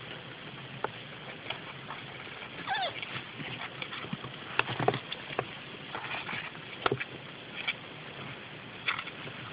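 Kittens scuffling in a cardboard box lined with newspaper: scattered scratches, paper rustles and knocks against the box, and a short rising kitten mew about three seconds in.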